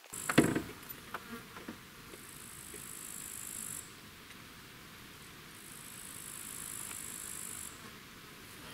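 Insects in a summer meadow buzzing in two high-pitched stretches of about two seconds each. A few sharp knocks come right at the start.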